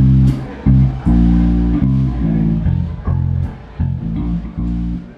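Live band playing amplified music, with a loud bass guitar carrying the low notes under electric guitar and drums.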